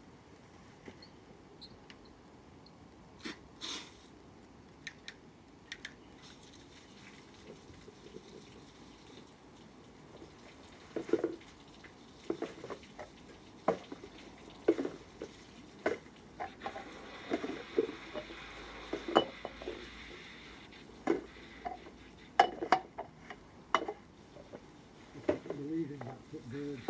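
Water from a garden hose splashing into a paddling pool as gunge is rinsed off a person's body. From about ten seconds in there are scattered short knocks and splashes, and for a few seconds near the middle there is a steady hiss of running water.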